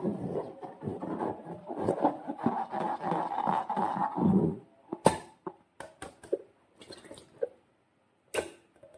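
Slime being worked by hand: thick, sticky squelching and crackling for about four and a half seconds, then a few separate sharp clicks and short squishes.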